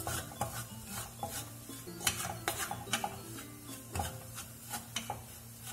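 Wooden spoon scraping and stirring a crumbly margarine-and-flour roux around an aluminium saucepan, in quick repeated strokes about two or three a second. The roux is cooked and pulling away from the pan, nearly ready for the milk.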